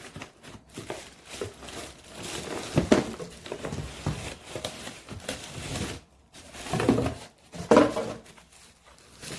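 Plastic packaging rustling and crinkling as parts are unpacked and handled, with a few louder bumps of handling.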